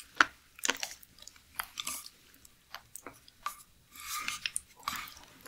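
Close-miked chewing of raw seafood: wet mouth clicks and crunches at irregular intervals.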